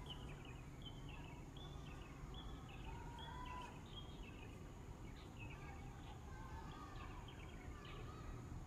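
Faint outdoor birdsong: many short, quick chirps from small birds, scattered throughout over a low steady background rumble.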